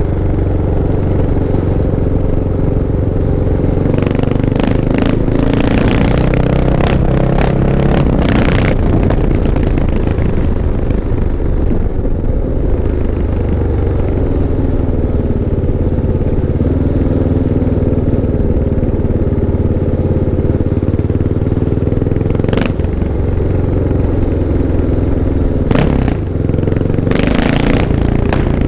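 Kawasaki KLX 650's single-cylinder four-stroke engine running, with the throttle opened several times: a run of revs about four to nine seconds in, and short revs again past twenty seconds and near the end.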